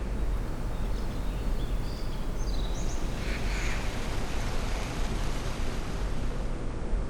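Layered nature ambience: a steady rush of wind and waterfall, with a few short bird chirps about one to three seconds in.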